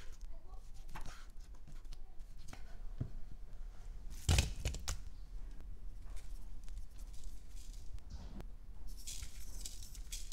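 Chef's knife slicing through raw beef short rib on a wooden cutting board, with small knocks of the blade on the board and one louder thump about four seconds in. Near the end, a soft hiss as seasoning powder is sprinkled over the cubed beef.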